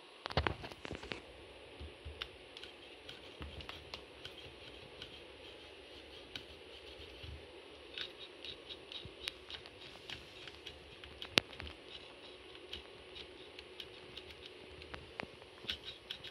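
Fingers handling the metal frame and plastic linkages of a 1/14-scale RC truck chassis: small clicks, taps and scrapes, with a few quick runs of light ticks and one sharper click about eleven seconds in.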